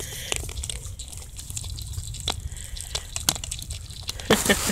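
Sika deer crunching whole dried corn kernels eaten from a hand: a scatter of sharp, irregular crunches and clicks.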